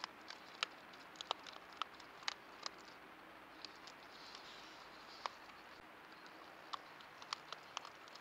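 A raccoon feeding at a dish: irregular sharp clicks and taps in quick clusters, pausing for a couple of seconds midway, over the trail camera's low hiss.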